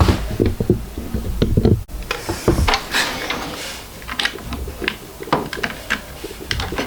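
Parts of a Bambu Lab X2D 3D printer being handled and fitted into place by hand: scattered light clicks and knocks, uneven in spacing.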